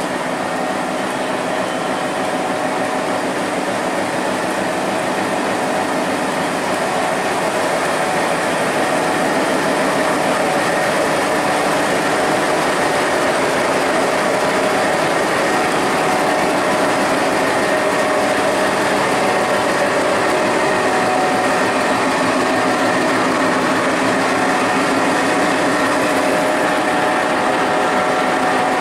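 Diesel-electric locomotive's engine running as the locomotive moves slowly past: a steady drone with a few held tones in it, growing louder over the first ten seconds or so and then holding even.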